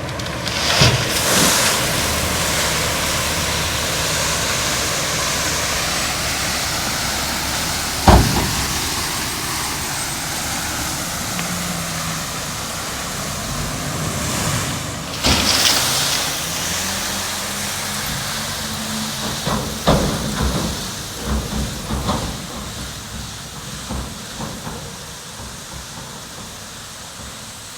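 Heavy dump truck running while it unloads gravel: a steady rushing noise over the engine, which rises in pitch around the middle, with loud knocks about 8, 15 and 20 seconds in.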